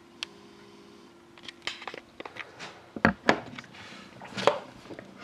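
A sealed cardboard trading card box being handled on a tabletop: several sharp knocks and clicks with a short rustle of its wrapping about four seconds in.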